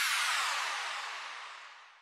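A rushing whoosh effect that sweeps steadily down in pitch and fades away.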